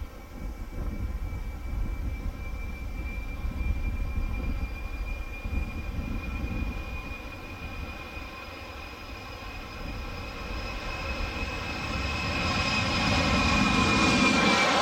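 Boeing 767-300ER airliner's twin jet engines at takeoff thrust during the takeoff roll and lift-off: a steady low rumble with a high, steady whine. It grows louder over the last few seconds as the jet climbs away toward the microphone.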